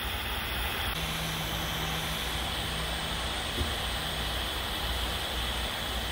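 Butane hot-air soldering tool hissing steadily from its blower tip as it heats a solder-seal heat-shrink connector.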